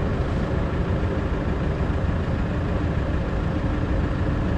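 A vehicle engine idling steadily, a continuous low rumble with faint steady hums above it.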